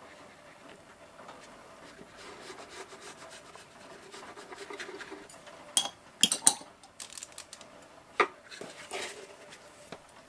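Paintbrush rubbing softly over paper, followed from about six seconds in by several sharp clicks and knocks, the loudest a quick cluster and one more knock about two seconds later.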